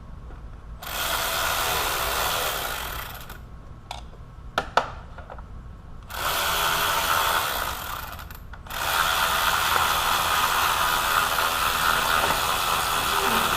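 A cordless power driver running in three spells of a few seconds each, the longest near the end, as fan-assembly bolts are driven. Two sharp clicks come between the first and second runs.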